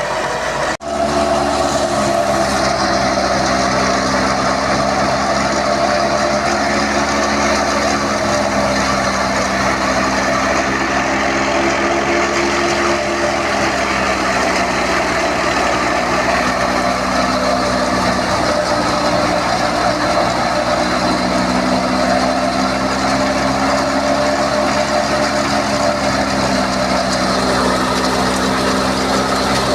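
An engine-driven wheat thresher runs steadily. The engine's pitch slowly sags and recovers as the crop load varies, over a dense rushing machine noise, with one brief break in the sound about a second in.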